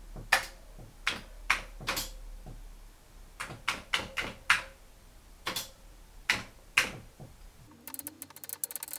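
Commodore 128 keyboard keys being typed at an irregular pace, single key clicks with short pauses. Near the end comes a quick rattle of fine clicks.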